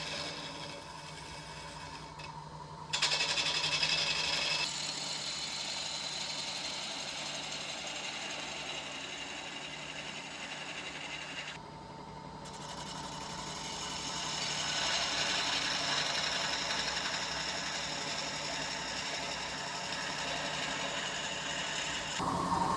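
A small electric power tool running as it works a piece of wood, a steady whir that changes abruptly a couple of times.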